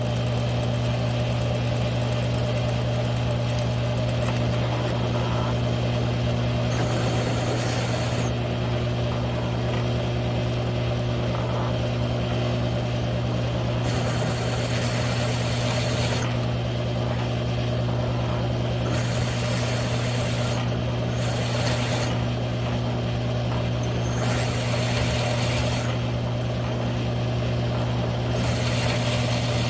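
Mill-drill motor running with a steady hum while a one-inch hole saw cuts into 3/8-inch steel plate. A harsh, high cutting noise comes and goes in spells of a second or two, several times, as the saw is fed into the steel.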